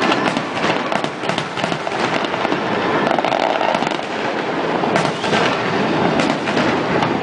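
Fireworks going off in rapid succession: a dense, unbroken crackle of many overlapping bangs, with sharper reports about five and six seconds in.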